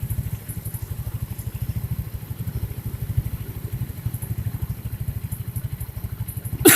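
First-generation Yamaha Mio scooter's single-cylinder four-stroke engine idling evenly with the CVT cover off. The rough rubbing noise is gone, which points to the cover area as the source. A single sharp clack comes near the end.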